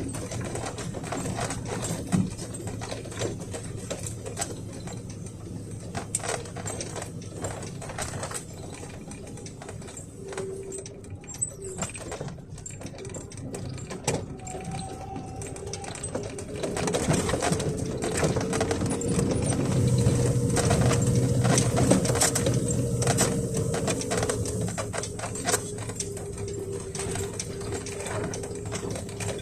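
Truck cab creaking and squeaking as it drives over a rough road, with constant small clicks and rattles over the engine's low drone. A thin squeal comes in about midway and the whole racket grows louder for several seconds after that.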